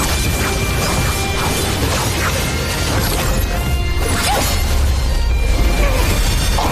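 Dramatic soundtrack music mixed with sound effects: crashing impacts, strikes and whooshes over a deep rumble.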